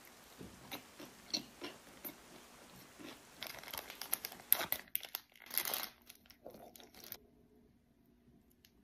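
Close-miked chewing with small wet mouth clicks for about three seconds, then a plastic sauce packet being torn open and crinkled, loudest about four to six seconds in, stopping abruptly near the end.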